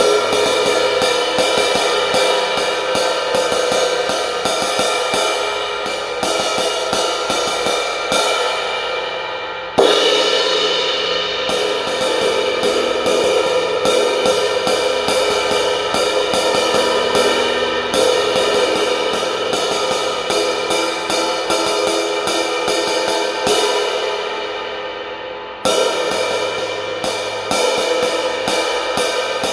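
20-inch Zildjian K Sweet Brilliant crash cymbal (prototype) played with drumsticks: a steady stream of stick strokes over a building shimmering wash. It is struck hard twice, about a third of the way in and near the end, each time flaring up and slowly decaying.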